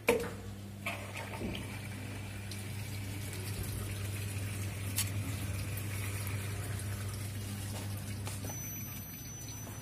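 A sharp click from the control panel of a Whirlpool White Magic top-loading washing machine, then a steady electrical hum with water rushing into the drum. The inlet valve is filling the tub at the start of a wash.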